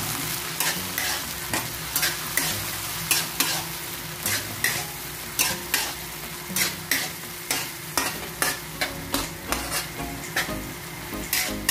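Metal spatula scraping and tapping against a metal wok about twice a second, stirring diced tomatoes, onion and garlic that sizzle in hot oil.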